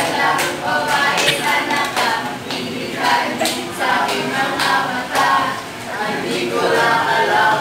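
A group of young voices singing a Filipino pop (OPM) song a cappella, with sharp claps or beats keeping time every half second or so.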